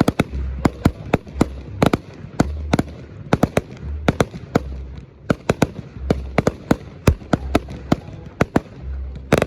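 Aerial fireworks going off in quick succession: a dense run of sharp cracks and bangs, several a second, over a low rumble.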